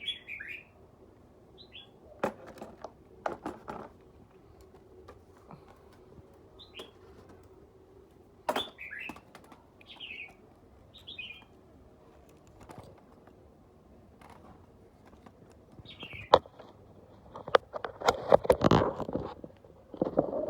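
Small birds chirping now and then in short notes, mixed with scattered sharp clicks and knocks of objects being handled. A run of louder knocking and rattling comes near the end.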